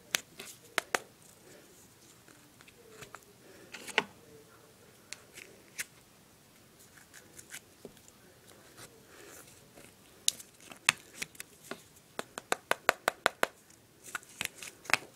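Scattered sharp clicks and taps of hand work on a wooden tabletop, with a quick run of them, several a second, near the end, as the last of the powder is knocked and picked out of a broken Piccolo Pete firework tube.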